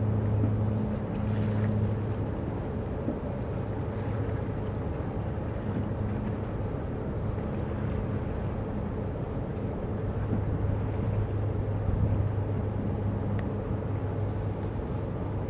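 Low, steady engine hum of boats on the river, over a steady background haze of water and wind.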